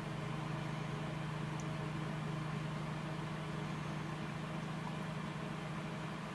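Steady low hum of room background noise, even throughout, with no distinct event.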